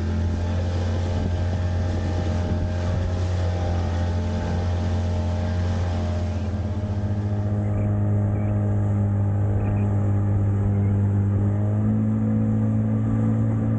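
Outboard motor on a small inflatable boat running at speed, a steady hum that rises slightly in pitch about seven seconds in, over the rush of water from the wake.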